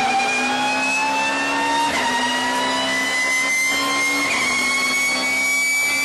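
Race car's straight-cut gearbox whining loudly over the engine, heard from inside the cockpit. The whine climbs steadily in pitch as the car accelerates, with small breaks about two and four seconds in.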